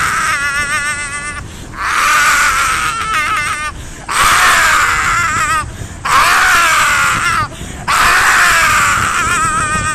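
A man screaming in long, high, wavering yells, about five in a row with short breaks between them.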